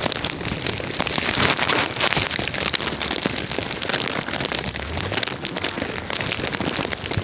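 Sleet pellets pattering on the camera and clothing, a dense, steady crackling patter.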